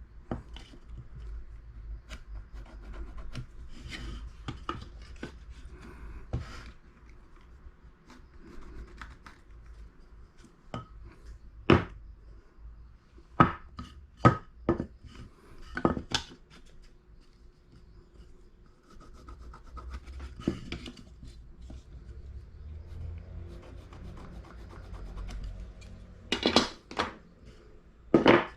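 Pieces of wood being handled: rubbing and scraping, with scattered sharp knocks of wood on wood, several close together near the end.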